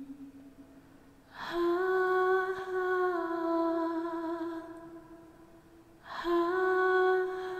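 A woman humming a slow tune in long held notes. The last note fades during the first second. A new note begins about one and a half seconds in, steps up slightly, then down, and fades out. The next note starts just past six seconds.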